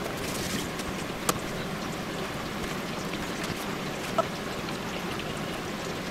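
Steady rushing background noise, like running water, with two light taps on a plastic cutting board as raw tuna blocks are handled, about a second in and again about four seconds in.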